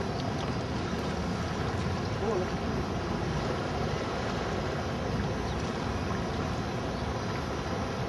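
Steady rushing noise of a boat under way on open water: motor and water noise, with wind buffeting the microphone.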